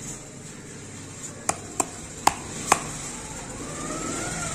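Four sharp knocks as a cut-off plastic pipe from a water pump's injector valve is tapped against a concrete floor, shaking out the caked dirt that had clogged it.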